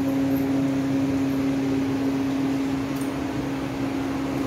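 Steady mechanical hum at one fixed low pitch over an even hiss, the kind an electric appliance motor such as a fan makes.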